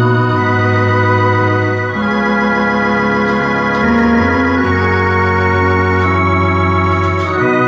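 Electronic organ fitted with a Tecsony sound kit, playing held chords over a moving bass line. The chords change every second or two.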